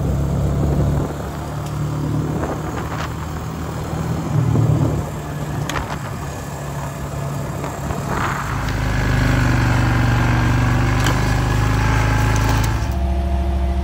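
All-terrain vehicle (ATV) engine running while riding along a gravel trail, with tyre and gravel noise under it. The engine note turns steadier and more even about eight seconds in.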